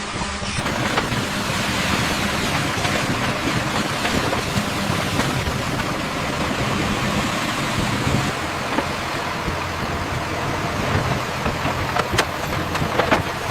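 Heavy construction machinery running steadily: a dense rushing noise over a low engine hum, with a few sharp clicks near the end.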